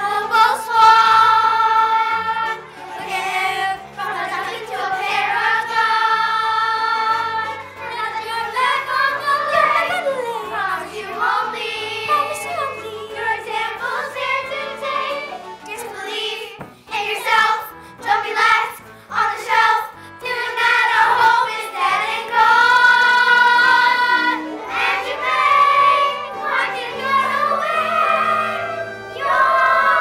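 A chorus of children singing together in unison over instrumental accompaniment, a number from a stage musical, with long held notes.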